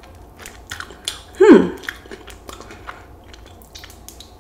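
Close-miked chewing of crispy fried chicken wings, with small crunchy clicks. About a second and a half in, a short vocal hum falls in pitch.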